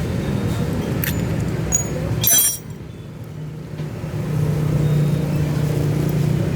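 An engine running steadily in a low hum. A short hiss comes a little over two seconds in, and the sound drops away briefly before the hum comes back louder.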